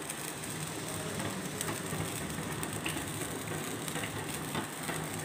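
Tomato sauce simmering in a frying pan over a gas flame: a steady sizzle with scattered small pops.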